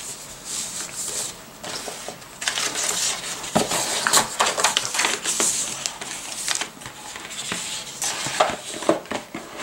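A hardcover notebook and cardboard gift boxes being handled on a tabletop: an irregular run of scrapes, rustles and light knocks as the book is set into its box and the boxes are slid about.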